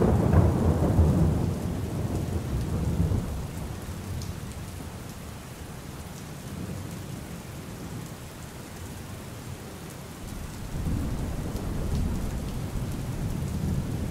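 Steady rain with rolling thunder: a low rumble in the first few seconds dies away by about four seconds in, and a second rumble builds near the end.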